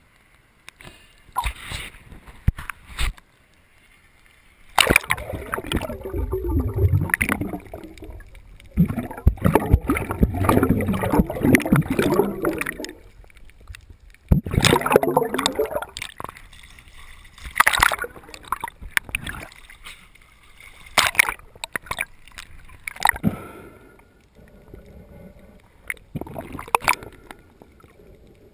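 Water gurgling and sloshing around a camera held just below the sea surface, coming in irregular bursts with sharp clicks and splashes between; the longest bursts fall in the first half.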